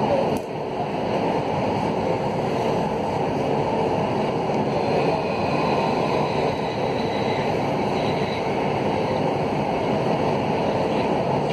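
Alstom AS 02 steel-wheel metro train running along the line, heard from inside the car as a steady rumble of wheels on rail. A faint high whine comes through in the middle.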